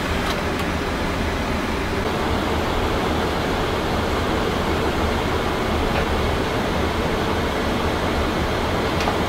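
Steady rushing noise over a low hum: the ambient noise of a Boeing 787 flight deck, with a few faint ticks.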